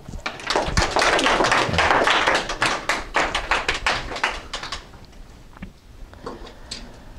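A small audience applauding, many hands clapping together, dying away about five seconds in.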